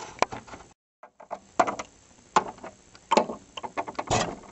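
Handling noise from plastic toy figures and the camera being moved by hand: five sharp knocks and clicks spaced under a second apart, with light rustling between them and a brief dropout to silence just under a second in.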